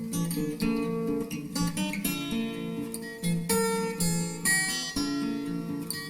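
Background music: acoustic guitar strummed and picked, with notes changing every half second or so.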